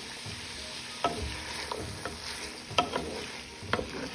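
Vegetables (green beans, carrots and spring onions) sizzling as they fry in a pot. From about a second in, a spoon stirs them, with half a dozen knocks and scrapes against the pot.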